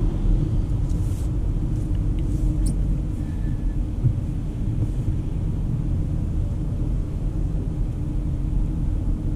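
Steady low rumble of a 2024 Volvo XC40 B3 driving slowly on a wet road, heard inside the cabin: tyre and road noise with engine hum. A few faint ticks come about one to three seconds in.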